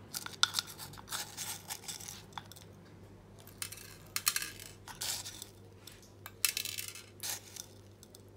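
Small pebbles of top dressing scooped with a wooden spoon from a ceramic pot and poured into a ceramic teacup around succulent cuttings, rattling and scraping in a series of short bursts.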